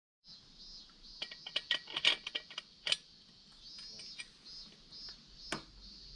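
Scattered light clicks and taps as a stick-welding electrode and holder are handled over a steel workpiece, most of them about one to three seconds in and one more near the end, over a faint steady high hiss.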